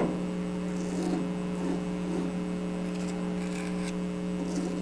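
Steady electrical hum with faint, short scrapes and rustles of small miniature bricks being handled and set in place on glue.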